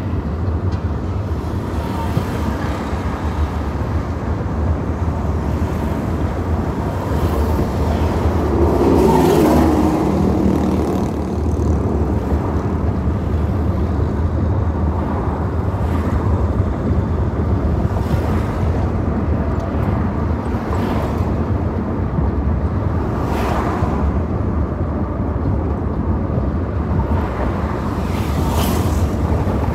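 Car driving, heard from inside the cabin: a steady low engine and road rumble that swells louder about nine seconds in, with a few brief whooshes of passing traffic.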